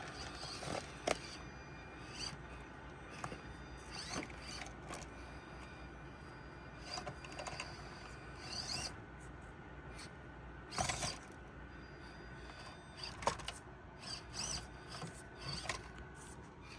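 Axial SCX24 Deadbolt 1/24-scale RC crawler driving over obstacles: a faint electric motor and gear whine, rising briefly about eight seconds in, with scattered clicks and knocks as the tyres and plastic body bump over the terrain, the loudest knock about eleven seconds in.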